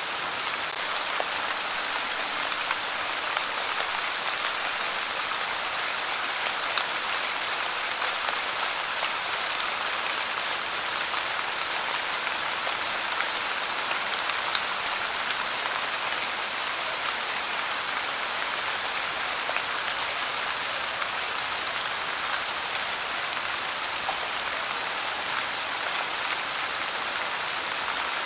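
Light rain falling steadily: an even hiss of many small drops, with faint scattered ticks of individual drops.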